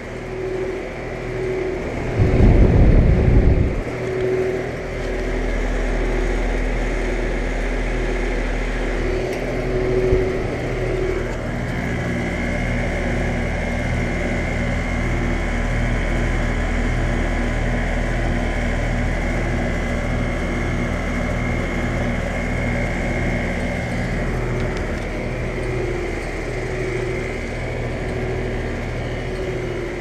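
2010 Bryant Preferred 4-ton central air conditioner's outdoor unit running: a steady hum of the compressor and condenser fan. A brief loud low rumble comes about two seconds in.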